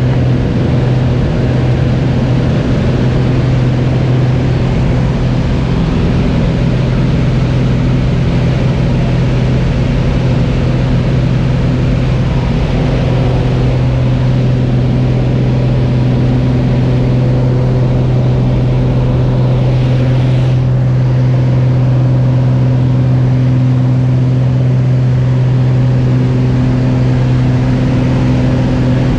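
Single-engine light aircraft's engine and propeller droning steadily, heard from inside the cabin during the take-off roll and climb-out. The note holds steady throughout.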